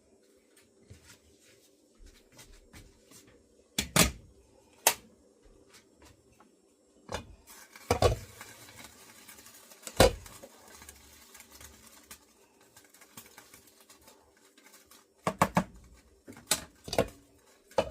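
Kitchen utensils and dishes being handled: scattered sharp knocks and clatters, a few loud ones spread through, over a faint steady hum.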